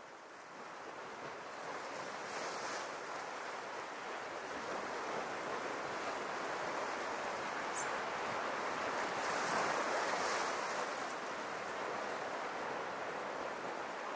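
Sea waves washing against a rocky shoreline in a small cove, a steady surf hiss that builds over the first couple of seconds and swells loudest about two-thirds of the way through.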